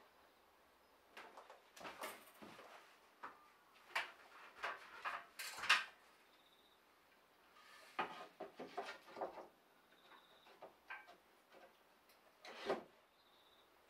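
Wood being scraped and rubbed in short, irregular strokes, in clusters with pauses between them.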